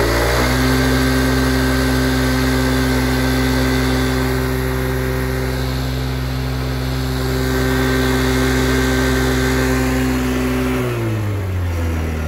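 Kymco Super 8x 50cc scooter engine revved at full throttle with the stock CDI's rev limiter connected. The revs climb at the start, hold at one flat, steady pitch for about ten seconds as the limiter caps them, then drop away near the end as the throttle is released.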